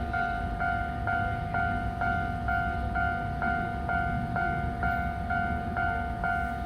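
Japanese railway level crossing alarm ringing, its electronic bell tones repeating about twice a second, over a steady low rumble.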